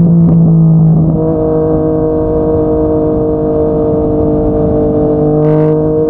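Yamaha MT-09's inline-three engine through a Yoshimura R55 slip-on exhaust, heard on the move. It runs at a steady pitch, gets a little quieter and changes note about a second in, then holds an even cruising tone.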